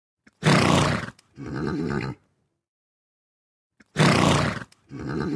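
A large animal's call in two parts, a loud harsh cry followed by a softer, lower one. The same call is played again near the end.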